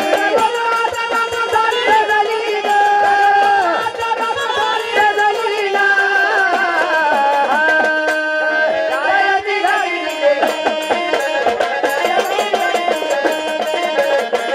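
Gondhal devotional folk music: a held, gliding melody, most likely sung, over a steady drum rhythm.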